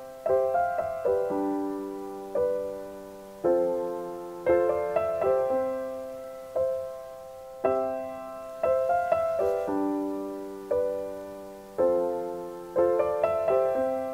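Slow, gentle solo piano music: chords struck about once a second, each ringing and fading before the next.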